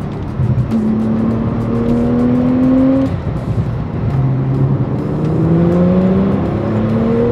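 Porsche 911 Turbo S (991) 3.8-litre twin-turbo flat-six accelerating hard, heard from inside the cabin. The engine note rises in pitch, falls back at a gear upshift about three seconds in, then climbs again.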